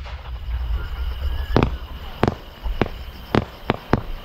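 Fireworks display: six sharp booms of aerial firework shells in quick succession from about one and a half seconds in, over a steady low rumble.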